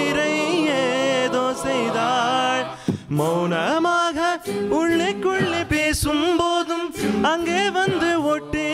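Mixed a cappella group singing a wordless harmony, several voices at once with a lead line over sustained backing parts and sharp beatboxed percussion hits. The voices break off briefly about three seconds in, then come back with a rising swoop.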